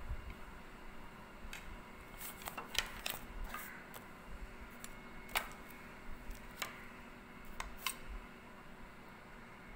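Scattered light clicks and taps from a large kitchen knife shaving thin peel off an apple and being laid down on a plate, with small handling sounds of the cut peel. The sharpest taps come about three seconds in, again past the middle, and near the end.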